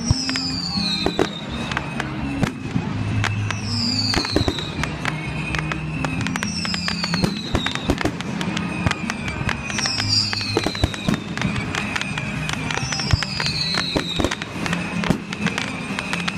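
Aerial fireworks bursting and crackling, a rapid string of sharp bangs and pops, over background music with held low notes and a falling whistle-like sweep about every three seconds.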